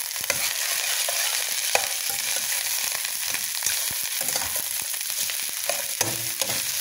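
Pork, cabbage and carrot strips stir-frying in a metal pan, sizzling steadily, while a fork stirs them with scattered clicks and scrapes against the pan.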